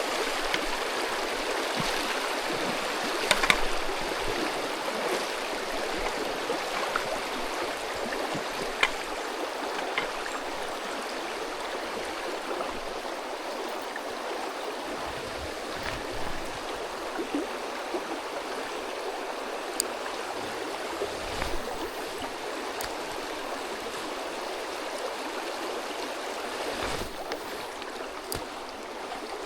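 Mountain stream flowing over rocks, a steady rush of water, with a few faint scattered clicks and knocks.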